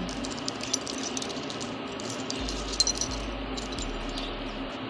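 Scattered small clicks and light rattles over steady background noise, with a couple of louder clicks about a second in and again around three seconds.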